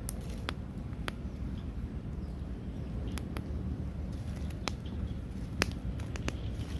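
Cooking fire under grilling fish, crackling with about a dozen scattered sharp pops, the loudest a little after halfway, over a steady low rumble.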